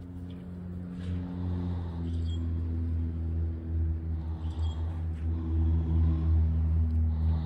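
Low engine drone of a passing motor vehicle, growing steadily louder and loudest near the end.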